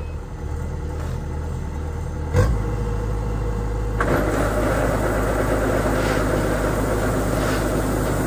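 An engine running steadily, with a sharp knock about two and a half seconds in; from about four seconds in it grows louder and noisier and stays that way.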